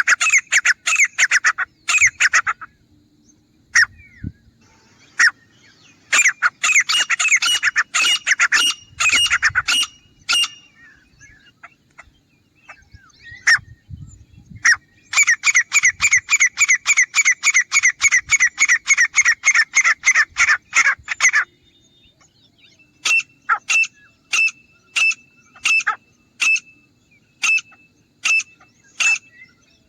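Grey francolin calling: bouts of loud, fast, harsh repeated notes. The longest bout runs for about six seconds in the middle, and slower, evenly spaced single notes follow near the end.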